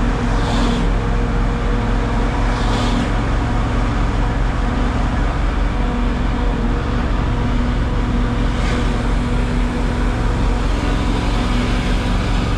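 Micro (small city bus) engine running steadily with a constant low drone, with three short hisses about half a second in, near three seconds and near nine seconds.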